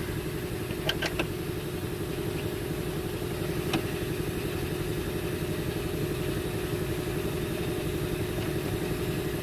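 Engine idling steadily with an even low rumble. Three sharp clicks, two close together about a second in and one near four seconds in, come from metal seatbelt parts being handled.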